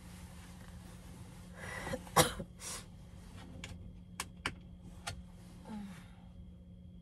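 A person coughing once, followed by a few light clicks and a brief low vocal sound, over a steady low hum.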